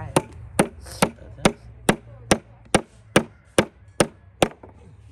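A tool striking wood in a steady rhythm, about two blows a second, eleven in all, stopping about four and a half seconds in.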